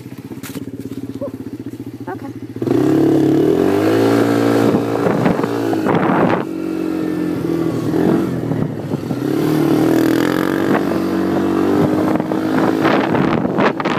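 ATV engine idling steadily, then revving much louder about two and a half seconds in as it pulls away and rides. Its pitch rises and falls with the throttle.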